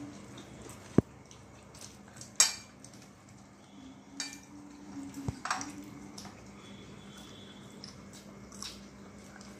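Ceramic plates, bowls and drinking glasses clinking and knocking on a glass-topped table during a meal, a few scattered strikes with a sharp knock about a second in. A faint steady hum runs underneath.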